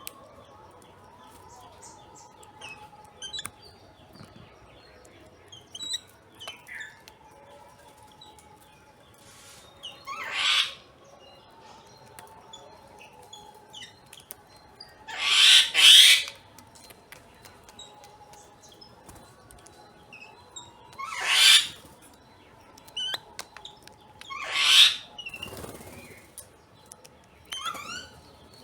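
Bird sound effects: a few loud whooshes of flapping wings, each under a second, one of them a quick double. Faint chirps and twitters fill the gaps between.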